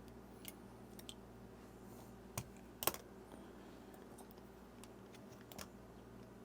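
Faint, irregular small clicks and taps of watch parts and small tools being handled and set down, about six in all, the sharpest a little under three seconds in.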